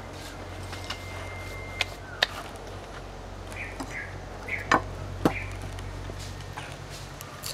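A garlic bulb being handled and broken into cloves on a wooden table: a few sharp knocks and clicks, the loudest two about half a second apart near the middle, over a steady low hum.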